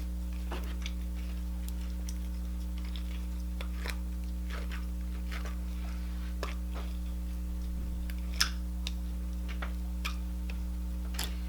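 Slime being pulled out of its plastic container by hand: faint, irregular clicks and small pops, about a dozen, over a steady low hum.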